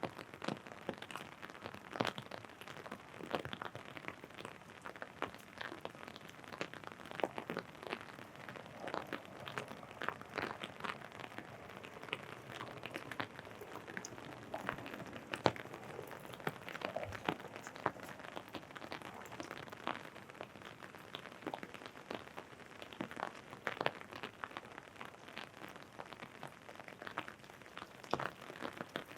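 Raindrops tapping on an umbrella held overhead: a dense, irregular run of small taps over a light hiss of rain.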